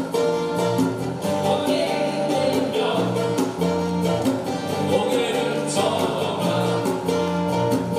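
Live acoustic band music: strummed acoustic guitars, electric bass and a djembe keeping a steady beat, with voices singing.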